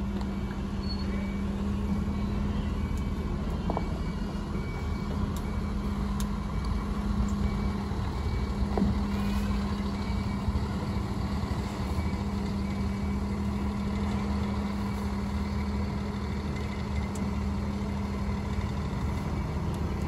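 Mercedes-Benz coach's diesel engine running with a steady drone as the bus moves off slowly and turns.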